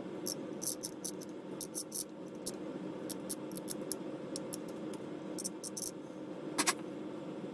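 Light, sharp clicks and ticks of small plastic model-kit parts being handled and pressed into place, irregular and frequent, with one slightly louder click about two thirds of the way through. A steady low hum runs underneath.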